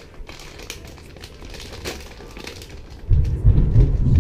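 Plastic packaging crinkling and rustling as a motherboard is handled out of its box, in a quick run of small rustles and clicks. About three seconds in, a loud low rumble starts up underneath.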